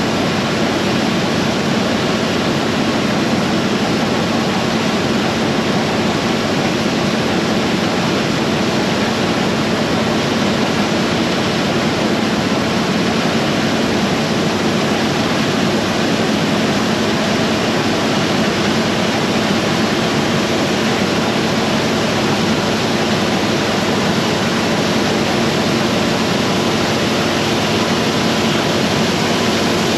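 Harvest machinery running steadily at work: a constant rush of engine and mechanical noise with a low, even hum underneath.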